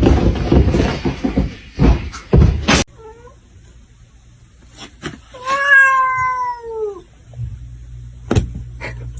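A domestic cat meowing: a short faint meow about three seconds in, then one long drawn-out meow that falls in pitch around the middle. Before the meows come loud bumps and scuffling, and a few sharp clicks come near the end.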